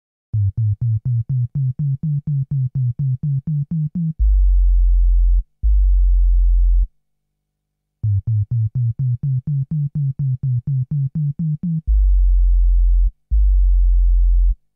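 Electronic music opening on a synthesizer: a quick run of short low notes, about four a second, slowly climbing in pitch, then two long deep bass notes. After a short pause the whole phrase repeats.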